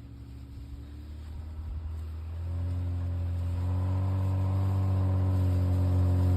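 Vehicle engine running on a snowy trail, a steady low hum that grows stronger about two and a half seconds in and keeps getting louder.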